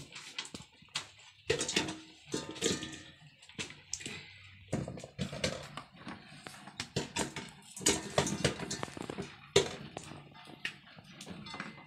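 Lychees being plucked from their stems and dropped into an aluminium pot: irregular knocks and clinks against the metal, some with a brief ring, with rustling of the twigs in between.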